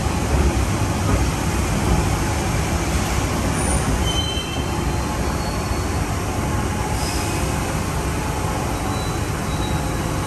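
London Underground Waterloo & City line train (1992 stock) pulling into the platform, with a steady low rumble and brief high wheel squeals about three to four seconds in. After that the level drops slightly and a steady rumble carries on as the train comes to rest.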